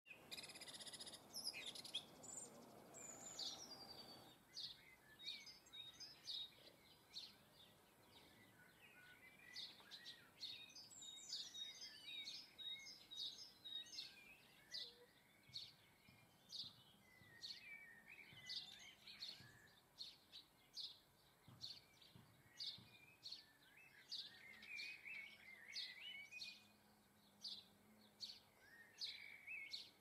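Faint garden birdsong: small songbirds give short, sharp chirps every second or so, with twittering phrases among them. A brief rush of noise comes in the first few seconds.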